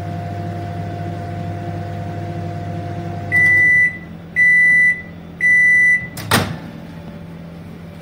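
LG convection microwave oven running with a steady hum that stops about three seconds in, then beeping three times to signal the end of the cooking cycle. Near the end its door is unlatched with one sharp click.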